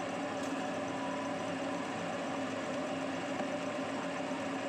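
Ceiling fan running: a steady hum with a few constant tones over an even rush of air.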